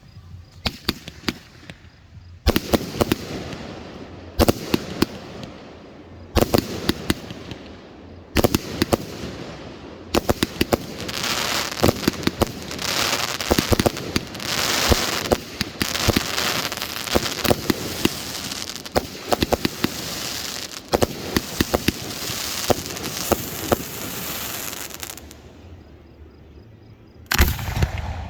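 Fireworks going off: single sharp bangs about every two seconds, then a long, dense stretch of crackling and rapid pops. This dies down, and one more loud bang comes near the end.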